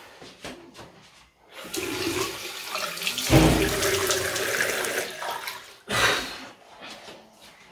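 Bathroom sink tap running, with water splashing as hands scoop it onto a face. It starts about two seconds in, is loudest in the middle and stops before six seconds, followed by a brief rush of noise.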